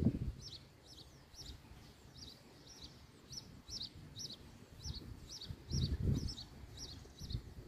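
A small bird chirping over and over, short high chirps about two to three a second without a break. Low wind rumble on the microphone swells at the start and again about six seconds in.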